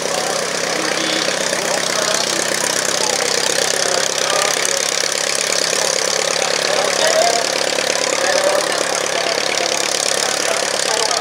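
Ryan STA's Menasco inverted four-cylinder engine and propeller running steadily at taxi power as the aircraft rolls past close by.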